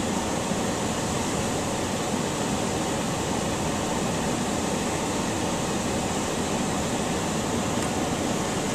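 Steady rushing air from a 2011 Ram 1500's climate-control blower running inside the cab.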